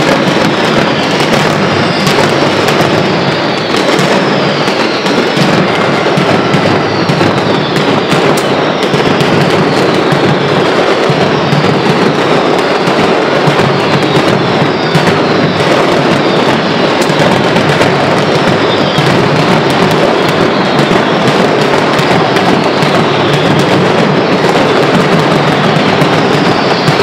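Mascletà: a dense, unbroken barrage of ground firecrackers going off in rapid succession. High whistles falling in pitch sound over and over on top of the crackling.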